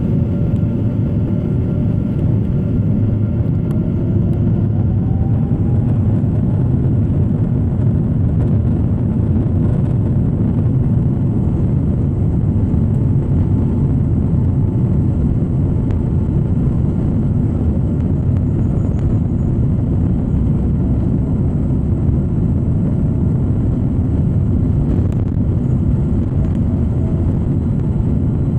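Airliner jet engines, heard from inside the cabin, spooling up to takeoff thrust with a whine that rises in pitch over the first several seconds, then a steady loud rumble through the takeoff roll.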